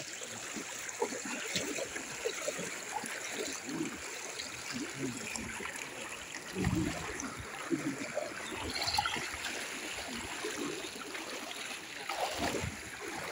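Floodwater sloshing and splashing around legs as people wade through it, an irregular run of swishes with each step.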